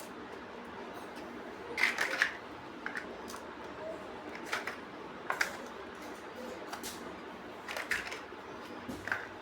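Plastic building bricks clicking and snapping together as they are handled and pressed into place. There are short sharp clicks every second or so, with a quick cluster of several about two seconds in.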